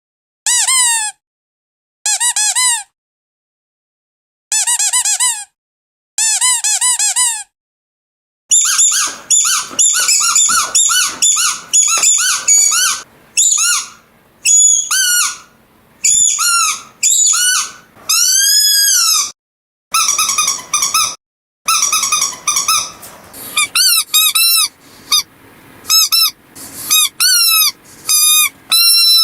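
Squeaky dog toy squeezed again and again. At first it gives short squeaks that fall in pitch, in small groups with pauses between. From about eight seconds in comes a faster, higher-pitched run of squeaks, with one long squeak that rises and then falls.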